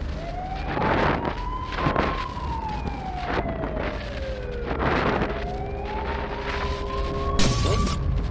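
A siren wailing, its pitch slowly climbing, sinking over a few seconds and climbing again, with repeated rushes of noise and a loud burst of hiss near the end.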